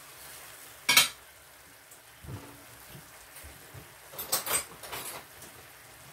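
A metal pan lid clanks once, sharply, about a second in, over the faint steady sizzle of beef and sliced zucchini simmering in a pan. A few lighter metal clinks follow about four seconds in.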